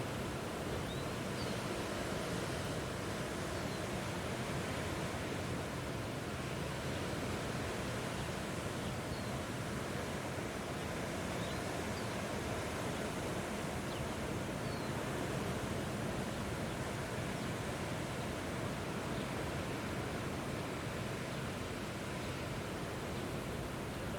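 Strong wind blowing steadily, a dense, even rush strongest in the low and middle range, with a few faint short high chirps now and then.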